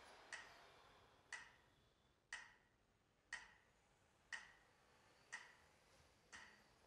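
Faint, steady metronome ticking, one click a second (60 beats a minute), seven clicks in all.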